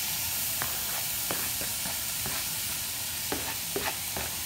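Chopped onions, carrot and garlic sizzling as they land in a hot frying pan greased with the fat left from browning chorizo. A wooden spoon taps and scrapes several times as it pushes them off a flexible plastic cutting mat.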